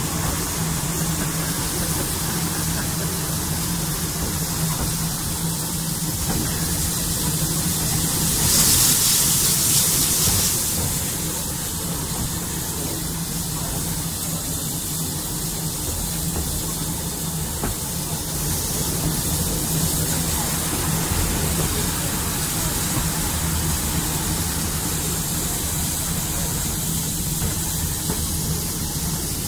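Saddle-tank steam locomotive running along the line, heard from on board: a steady hiss and rumble, with a louder rush of steam hiss about nine seconds in that lasts a couple of seconds.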